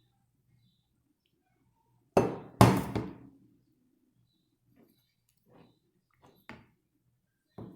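Two sharp, clinking knocks of hard objects about two seconds in, ringing briefly, followed by a few faint taps.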